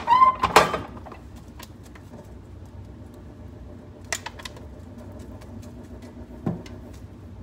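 Light handling sounds of cucumber pieces being arranged on a plate: a short louder clatter at the start, then a few isolated soft clicks and taps over low steady kitchen background.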